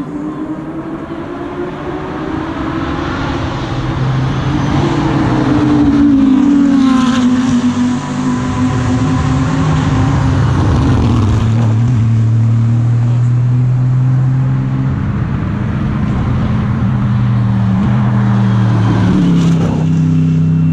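GT3 race car engines running loud on the circuit as the cars approach and pass, the engine note falling about a third of the way in, then holding fairly steady before shifting again near the end.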